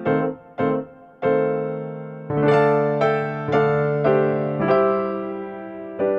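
Background music: a piano-like keyboard plays a slow tune of struck notes and chords, each note fading after it is struck.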